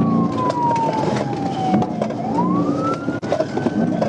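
Police car siren in its wail cycle, falling slowly in pitch over the first two seconds and then rising again, over steady vehicle noise.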